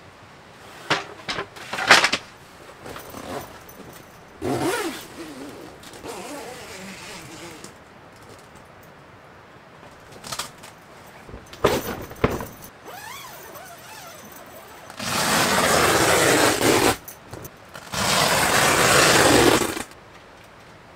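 Camping gear being handled and set up on a tent floor: sharp knocks and clicks of wooden parts. Near the end come two long, loud scraping rustles of about two seconds each.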